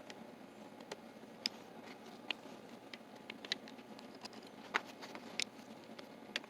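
Faint, irregular small metallic clicks and taps of a screwdriver and hand working the cover screws out of a Dorma mortise lock's case, about seven clicks spaced unevenly.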